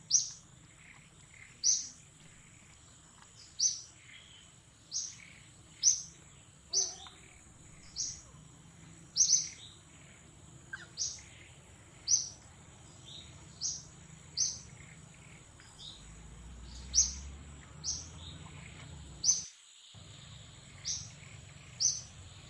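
Baby monkey crying: short, shrill, falling squeaks repeated about once a second.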